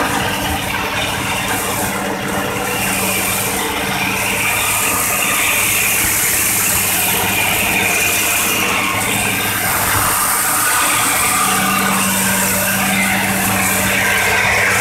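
Diesel engine of a Hitachi hydraulic excavator running steadily at constant speed, heard from on the machine, with a high hiss over it that swells in the middle.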